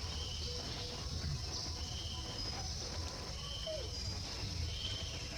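Outdoor insect chorus with a steady high buzz, and a short high call that repeats four times, about every second and a half, over a low steady rumble.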